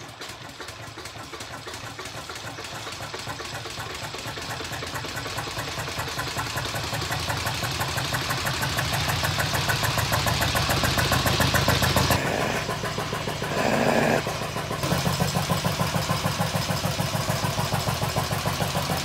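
Lister stationary diesel engine just started and running up to speed: a rapid, even beat that grows louder and quicker over the first dozen seconds, then settles into a steady run.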